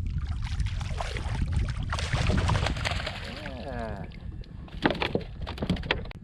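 A bass being landed with a net from a kayak: water splashing, with knocks and rattles from the net and gear against the hull. Wind rumbles on the microphone.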